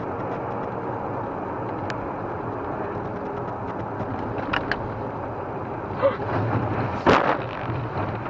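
Road and engine noise of a moving car heard from inside the cabin through a dashcam microphone, with a single sharp knock about seven seconds in.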